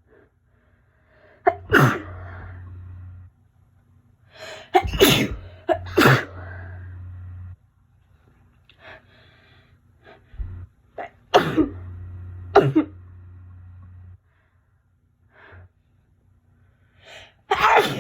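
A woman sneezing about six times with a heavy cold, the sneezes coming mostly in pairs a second or so apart, with short breaths in between.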